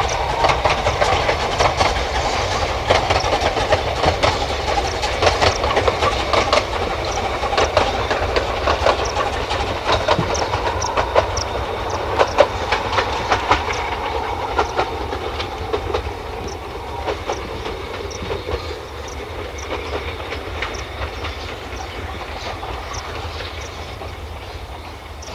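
Narrow-gauge steam train running past, with a steady run of clicks from the wheels and working over a steady rumble, fading gradually as it draws away.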